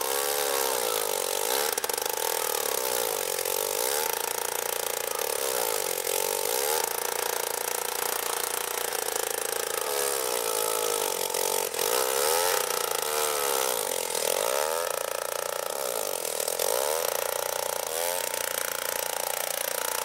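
Gas-powered ice auger's small engine running hard while it bores through lake ice, its pitch swelling and dipping again and again.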